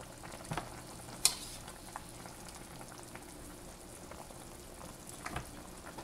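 Soy-vinegar adobo sauce bubbling in a wok, a steady sizzling hiss, with a few sharp clinks of a metal spoon on the pan as chicken pieces are scooped out. The loudest clink comes about a second in.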